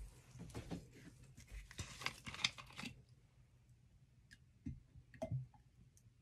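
Crinkly rustling and crackling for about three seconds as gloved hands pick up a bottle of jojoba oil, then a few light clicks and two soft knocks as it is tipped to pour into a glass measuring cup.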